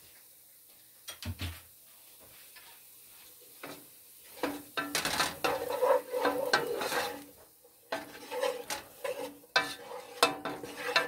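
Wooden spoon stirring and scraping onions and garlic sautéing in butter in a saucepan, with repeated knocks and scrapes against the pot. It starts about four seconds in, after a quiet stretch with one soft thump.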